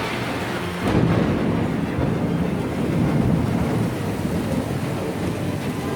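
Thunder breaks about a second in and rumbles for a few seconds, then eases off, over steady rain.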